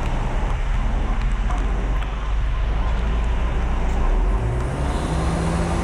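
Heavy truck diesel engine running with road noise around it. About four and a half seconds in, its pitch rises and then holds higher, as when the engine is sped up.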